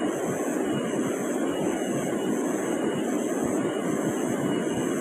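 Steady rushing of a shallow river running over rocks and small rapids.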